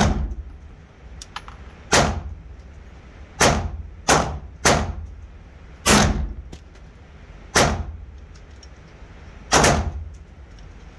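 Glock 17 9mm pistol firing 115-grain Fiocchi Perfecta rounds in an indoor range. There are about eight shots at uneven spacing, one to two seconds apart, with three in quick succession about a third of the way in. Each shot has a short echoing tail.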